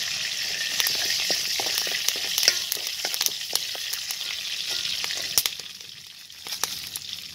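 Spices sizzling and crackling in hot oil in a karai to temper dal (phoron), with many sharp pops and clicks. The sizzle dies down about five and a half seconds in.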